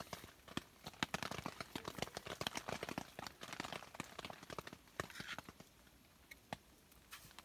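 Crackling and popping of a wood fire under a grill, a dense run of sharp pops in the middle that thins out toward the end.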